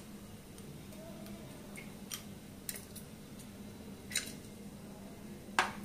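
Whole spices (shahi jeera and cinnamon sticks) frying in hot ghee in an aluminium pressure cooker: a few scattered sharp ticks and small crackles over a faint steady hum.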